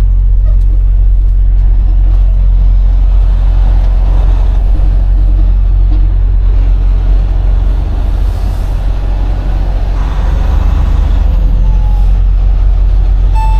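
Semi-truck diesel engine running as heard inside the cab while the truck pulls out slowly, a steady low drone with road and cab noise over it. The drone eases off briefly about eight seconds in, then picks up again.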